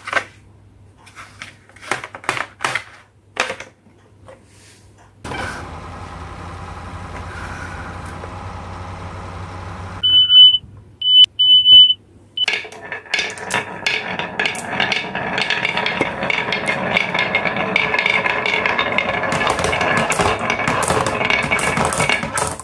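Light clicks of a plastic toy dump truck being handled, then a steady hum for about five seconds and three loud, short, high beeps. Marbles then roll and clatter down a wooden wave-carved ramp and drop into the truck's plastic bed, a dense continuous rattle through the last ten seconds.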